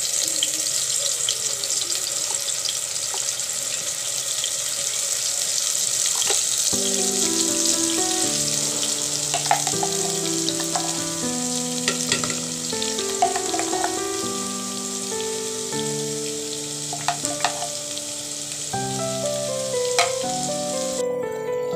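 Food frying in hot oil in a pan: a steady, loud sizzle that cuts off near the end. Background music with a plucked melody comes in about seven seconds in.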